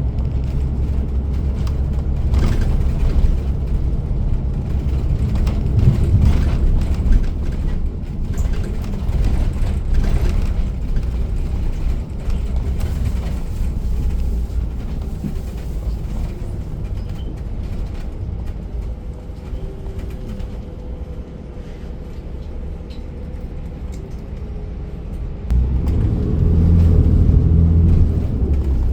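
City bus heard from inside the cabin: engine and road noise running steadily, easing off for a stretch past the middle, then the engine grows much louder and deeper about three-quarters of the way through as it pulls harder.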